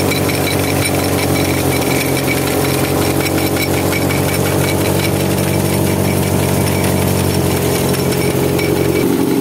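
Tractor-driven wheat thresher running steadily: the tractor engine and the thresher's spinning drive shaft and belt pulley make a constant mechanical drone with a thin high whine over it.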